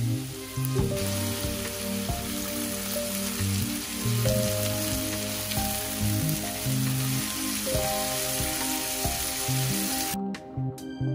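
Sliced button mushrooms sizzling as they fry in oil in a frying pan, under background music. The sizzle cuts off suddenly about ten seconds in, leaving only the music.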